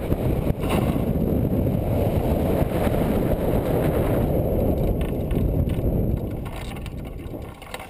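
Wind rushing over a wing-mounted camera's microphone as a hang glider flies low on landing approach; the rumble fades over the last few seconds as the glider slows, with light brushing from the control bar's wheels skimming the tall grass near the end.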